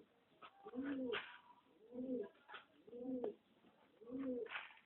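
Domestic pigeon cooing: about four low coos roughly a second apart. Short sharp pecks and rustles come between them as it picks grain from a tray.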